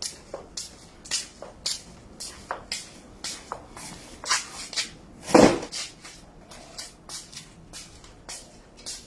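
Rhythmic swishing strokes, about three a second, with one louder, heavier stroke about five and a half seconds in.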